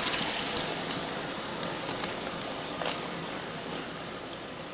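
Sizzling in a hot electric wok of chicken, onion and potato just after water is added, dying away steadily, with a few faint clicks.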